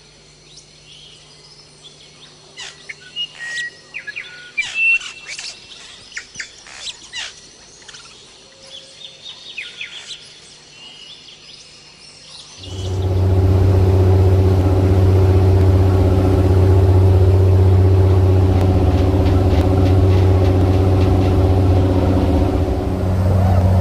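Birds chirping and calling for about the first half. Then a boat's engine cuts in suddenly and runs loud and steady with a low drone.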